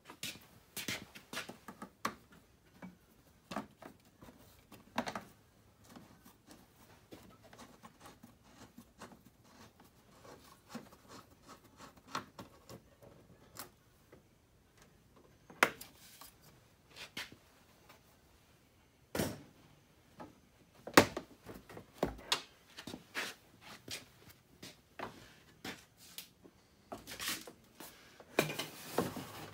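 Hands working on a utility vehicle's front end: scattered clicks, taps and knocks as wiring, connectors and cables are handled and parts are bumped, with a few louder knocks about halfway through and a busy cluster near the end.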